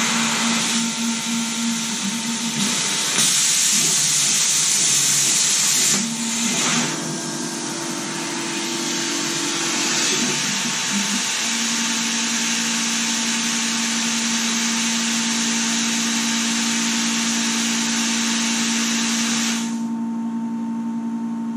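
Homebuilt CNC plasma table at work: the plasma torch hisses loudly, with short breaks a few seconds apart, over the whine and hum of the table's stepper-motor drive. The hiss cuts off about 20 s in, leaving a steady low hum.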